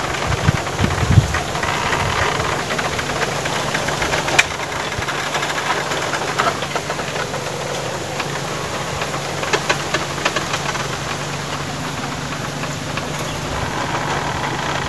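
An engine running steadily with a low, even hum, with a few light clicks over it.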